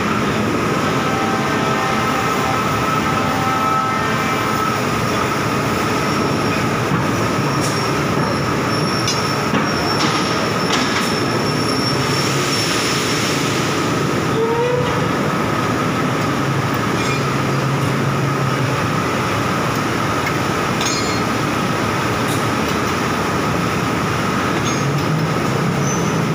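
Steady industrial din of machinery in a steel plant's continuous casting bay, with a constant high whine running through it. A few sharp clanks come around the middle, followed by a brief rising squeal.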